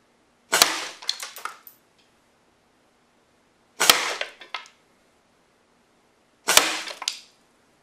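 Three air rifle shots, about three seconds apart, each pellet smacking into the plastic carbon monoxide detector case, which holds a stripped circuit board. Each hit is a sharp crack followed by about a second of smaller clattering clicks as the case rattles.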